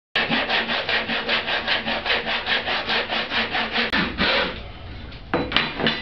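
Handsaw cutting shallow notches into a wooden board, in quick, even strokes for about four seconds. The cuts are the perch notches of a bluebird nesting box. The sawing stops, followed by a few knocks near the end.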